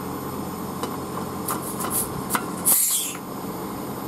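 Refrigerant manifold gauge hose being unscrewed from the mini split's low-side service port: a few clicks, then a short sharp hiss of escaping refrigerant about three seconds in. Under it the Cooper&Hunter multi-zone system hums steadily as it runs.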